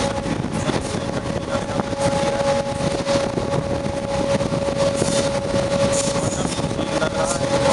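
A double-stack container train hauled by a WDM-series diesel locomotive passes close alongside: a continuous rush of wheel clatter and wind from the wagons, with a steady high tone held over it.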